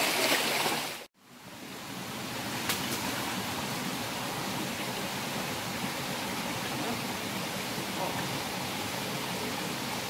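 Steady rushing water. About a second in it cuts out almost completely, then fades back up and stays steady.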